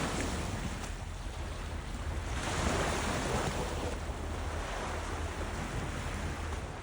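Ocean waves washing onto the shore, the surf swelling about two and a half seconds in, over a low rumble of wind on the microphone.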